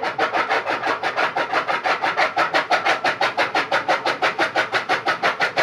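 Electric chaff cutter (toka) running with its flywheel blades chopping green fodder as it is fed in: a rapid, even chopping rhythm of about nine strokes a second over the hum of the machine.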